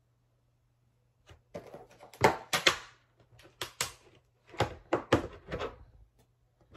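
Plastic DVD keep case being opened by hand: a string of sharp plastic clicks and knocks, several close together, as the case is unlatched and the disc is unclipped from its hub.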